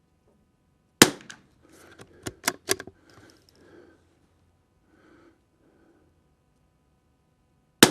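Two shots from a Tikka T1X .22 LR bolt-action rifle firing Eley Match rimfire ammunition, about seven seconds apart. After the first shot comes a quick run of metallic clicks and clacks as the bolt is worked to eject the case and chamber the next round.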